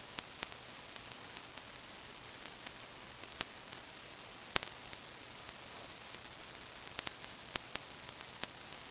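Steady low hiss of a webcam microphone, broken by several small sharp clicks at irregular intervals, the loudest a little past halfway.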